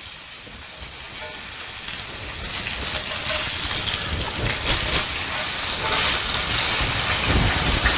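Floured chuck roast cubes sizzling in hot oil in a cast iron skillet, turned with metal tongs. The sizzle grows louder over the first few seconds and stays steady, with a couple of low thumps.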